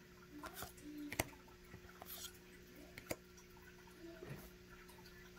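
Faint clicks and light snaps of Pokémon trading cards being flipped through by hand, a few isolated ticks about a second apart, over a steady low hum.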